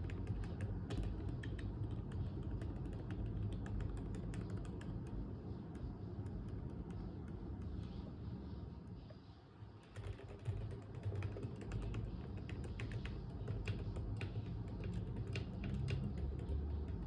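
Keychron K8 mechanical keyboard fitted with Gamakay Phoenix V2 silent linear switches, being typed on rapidly in a dense run of soft keystrokes, with a brief pause a little over halfway through before the typing resumes.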